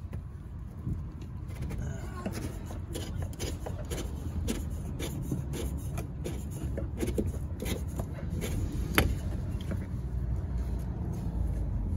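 Scattered clicks and light knocks of hands handling the plastic fuel pump fittings in the tank opening, over a steady low rumble, with one sharper click about nine seconds in.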